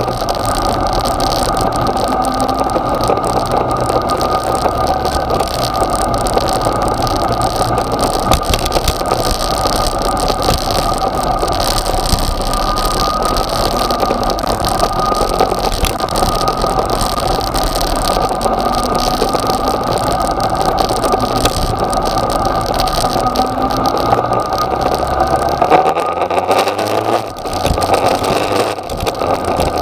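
Yamaha XJ6's 600 cc inline-four engine running as the motorcycle rides at low speed, its pitch rising several times as the throttle opens.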